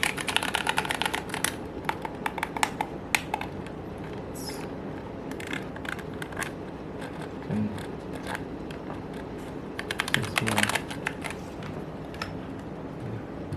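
Clicking of mechanical keys, in quick bursts of rapid clicks with scattered single clicks and pauses between.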